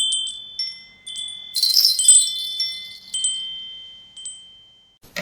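Chimes ringing: a series of high, bell-like strikes with long fading rings, a denser shimmering cluster of strikes about a second and a half in, then the ringing dies away.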